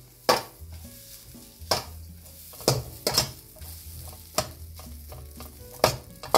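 A steel ladle stirring and tossing cooked rice in a hot steel wok: sharp metal clanks against the pan about once a second, with sizzling frying in between.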